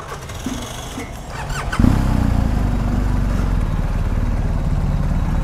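BMW GS motorcycle's boxer-twin engine starting a little under two seconds in and settling into a steady idle.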